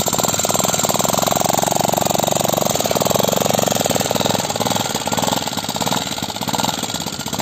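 Small quad bike's (ATV's) engine running under throttle as it pulls away, a rapid, even firing pulse that swells about a second in and eases after about three seconds.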